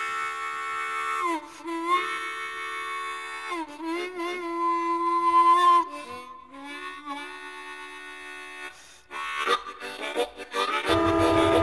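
Solo blues harmonica playing long held notes with pitch bends. Near the end a fast, rhythmic chugging comes in underneath.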